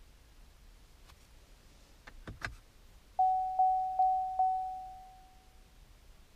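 A few sharp clicks, then a 2016 Chevrolet Camaro's in-cabin warning chime: four identical mid-pitched chimes in quick succession, about two and a half a second, the last one ringing out.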